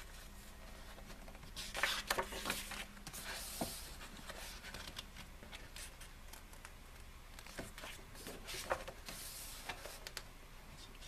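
Glossy pages of an album photobook being handled and turned: soft paper rustling with light taps, busiest about two seconds in.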